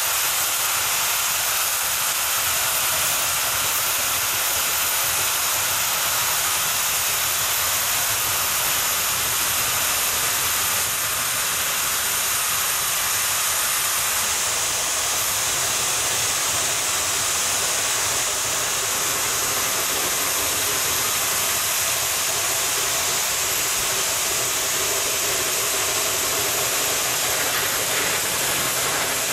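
Shay geared steam locomotive working uphill: a steady rush of steam exhaust and hiss.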